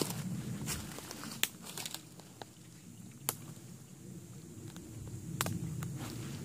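Footsteps crunching through dry leaf litter and twigs on the forest floor, with several sharp snaps and crackles of sticks and branches.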